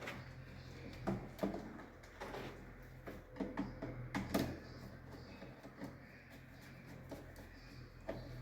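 Irregular clicks, taps and light scrapes of hands and tools working at miniature circuit breakers in a distribution board, as a conductor is fitted into a breaker terminal. A steady low hum runs underneath.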